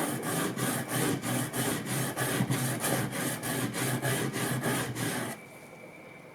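Hand-plane blade rubbed back and forth on a sharpening stone in quick, even strokes, about three a second, to hone out nicks in its edge. The strokes stop suddenly near the end.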